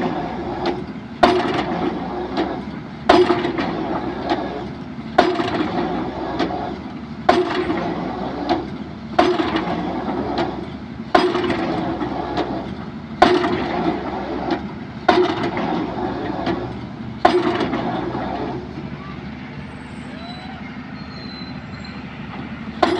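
Excavator drop hammer striking the top of a pile about once every two seconds, each blow a sharp clang that rings on for about a second. Nine blows fall; they stop about 17 seconds in, leaving quieter steady machine noise.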